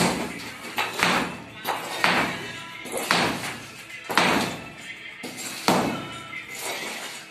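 Small hand hammers striking broken concrete and stone chips on a concrete floor, a sharp knock about once a second.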